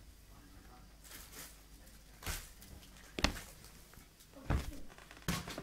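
A few scattered knocks and clunks of things being moved about, about four in all, the sharpest a little over three seconds in.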